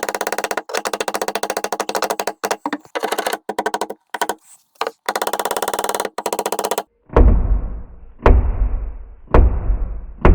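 A fast mechanical rattle of many clicks a second runs for about seven seconds and cuts off. Then a staple gun fires four times, about a second apart, each a sharp shot with a heavy thud as the staples go into the camper.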